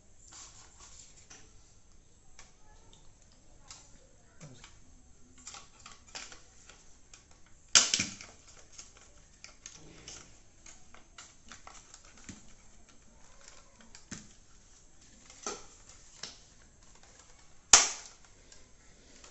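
Scattered light plastic clicks and taps as a replacement fridge thermostat is worked into its plastic housing, with two sharp, loud snaps, one about eight seconds in and one near the end.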